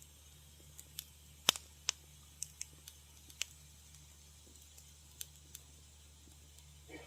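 Wood fire crackling in a fireplace: irregular sharp pops and snaps, the loudest about a second and a half in, over a faint steady low hum.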